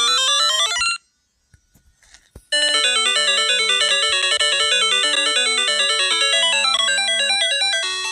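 Background music: a quick, bright melody of bell-like synthesized notes, like a ringtone. It cuts out about a second in and comes back about a second and a half later.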